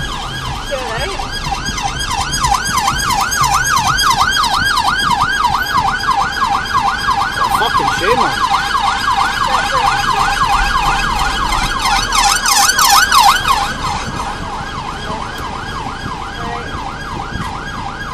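Police siren on a fast yelp: a quick rising-and-falling wail repeating about three times a second. It grows louder over the first few seconds and eases off about three-quarters of the way through. A brief clatter of sharp knocks comes about two-thirds of the way in.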